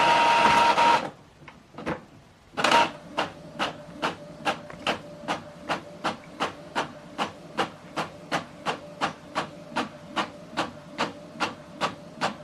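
Epson Expression Home XP-5200 inkjet printer printing a page. A loud whir sounds for about a second as it starts. Then, from about three seconds in, the print head carriage passes back and forth, making a regular click about three times a second over a steady whir.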